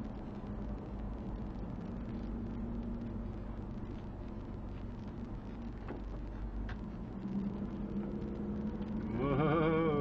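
Car driving, steady engine and road rumble heard from inside the cabin. Near the end a brief wavering, pitched sound rises over it.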